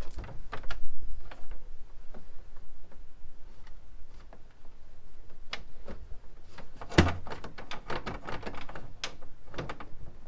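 Irregular clicks, taps and rustles of electrical cable being handled and pushed into a metal breaker panel, with a louder knock about seven seconds in.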